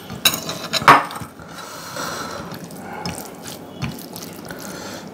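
Fingers mixing rice with chicken curry gravy on a plate, giving soft wet squishing and small ticks, with two sharp clicks in the first second.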